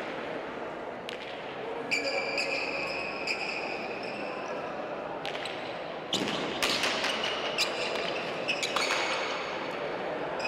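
A frontón ball bouncing on the floor and smacking against the walls of an indoor court during a serve and rally. Each hit echoes in the hall, and some brief high-pitched ringing comes with the knocks.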